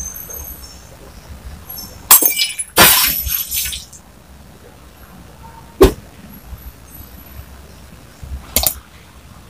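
Sound effects of an animated subscribe-button graphic: a loud crash about two seconds in that runs on for about a second and a half, then a sharp click near six seconds and another short crash near the end.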